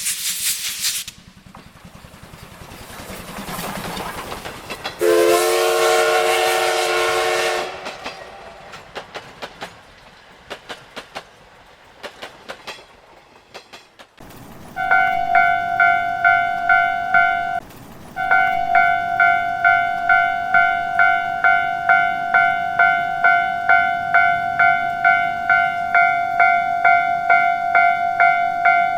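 A train passes: a hiss, a swelling rumble and a long horn blast of about two and a half seconds, then wheel clatter on the rail joints that fades away. Then a railway crossing warning bell rings steadily, about two dings a second, with a brief break partway through.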